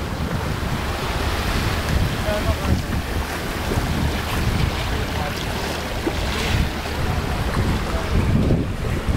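Wind buffeting the microphone over the steady rush of lake water along the hull of a square-rigged sailing ship under way.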